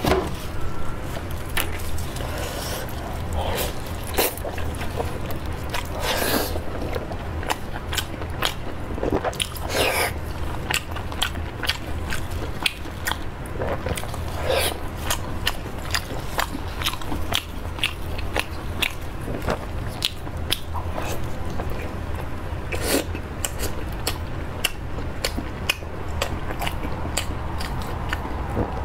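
Close-up biting and chewing of cooked pork belly, picked up by a clip-on microphone: repeated moist bites and crackly chews, over a steady low hum.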